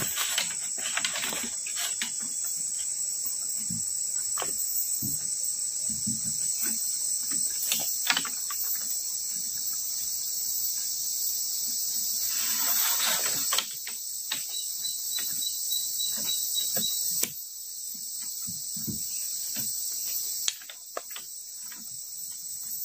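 Steady high-pitched insect chorus of crickets, which drops in level in steps about halfway through and again twice later. Over it come scattered light clicks and knocks, and a longer rustle a little past the middle, as wooden poles are handled and lashed together with cord.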